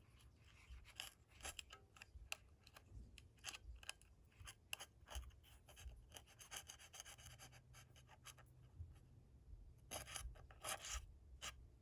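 Faint scratching, scraping and small clicks of a tool working at a small part inside an opened Sharp EL-122 calculator as it is pried loose, with a longer stretch of scraping in the middle.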